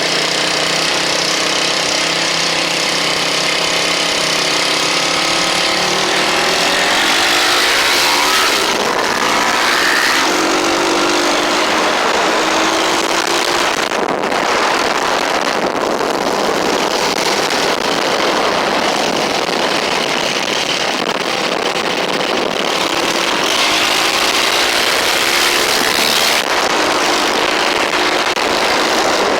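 A 4K Racing 450cc motorcycle engine running while ridden, its pitch rising and falling a few times with the throttle, over a steady rushing hiss.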